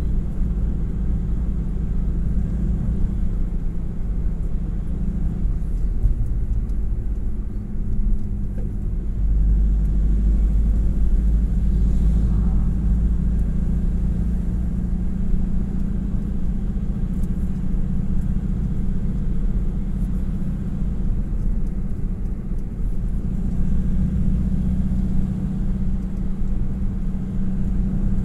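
A motor vehicle driving steadily along an open road: a continuous low rumble of engine and tyres with a steady drone underneath, a little louder for a few seconds about a third of the way through.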